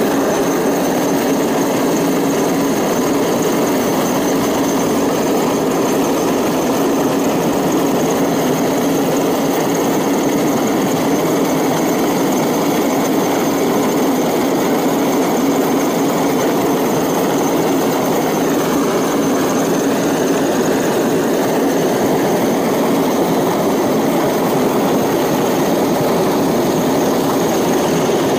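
Large six-bladed military helicopter hovering low directly overhead: loud, steady rotor and turbine engine noise with a faint high whine, and no let-up.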